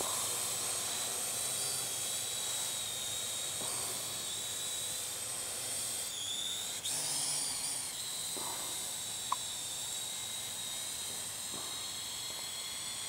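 Parrot drone's electric motors and propellers whining steadily in flight, with a high multi-toned hum over a hiss; about six seconds in the pitch dips and rises again as the drone changes speed.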